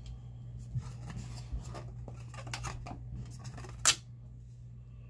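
Cardboard and plastic Blu-ray packaging handled by hand: short clicks and scrapes, then one sharp snap just before the end as the cardboard box lid is opened. A steady low hum runs underneath.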